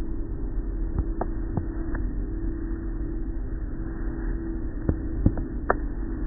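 Automatic tunnel car wash machinery running: a steady low hum, with a few short clicks scattered through it.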